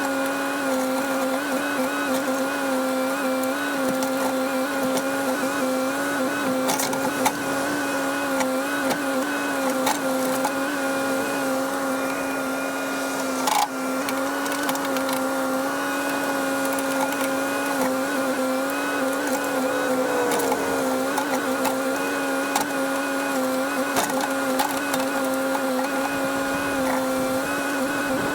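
Cat 308 excavator running steadily under work, a constant droning whine from its engine and hydraulics with slight wavers in pitch. A few faint knocks and clicks come through over it.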